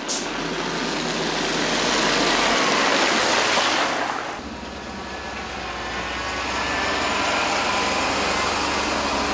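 A fire engine drives past on a wet, muddy road: its engine and the hiss of its tyres on the wet surface grow louder to a peak as it passes close by, then fall away abruptly. After that, a steadier vehicle engine rumble with a low hum.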